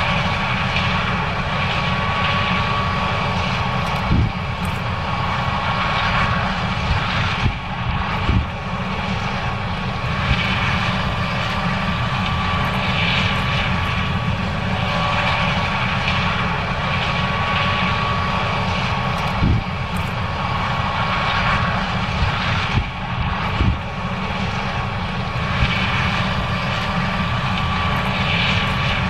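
John Deere 9610 combine running steadily while harvesting corn: a constant engine drone with a thin steady whine above it, and a few brief knocks.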